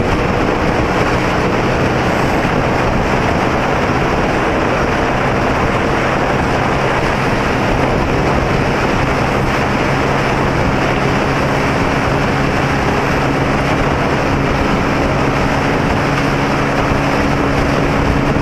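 Honda Pridor 100cc single-cylinder four-stroke motorcycle engine running at a steady cruise, under heavy wind rush on the microphone.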